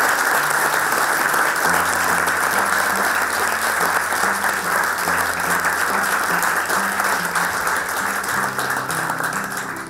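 Audience applauding steadily after a speech, with background music of low, slowly changing guitar notes laid under it; the clapping eases off near the end.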